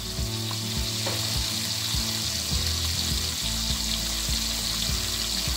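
Strips of bacon sizzling in hot fat in a frying pan, a steady hiss.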